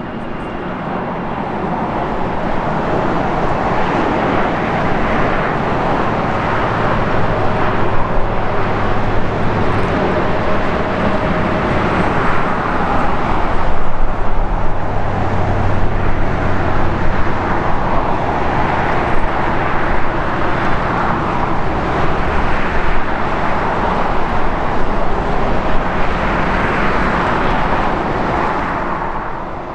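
Airbus A380's four Engine Alliance GP7200 turbofans running at taxi power as the jet rolls slowly past: a steady rushing noise with a faint low hum, swelling over the first few seconds and then holding.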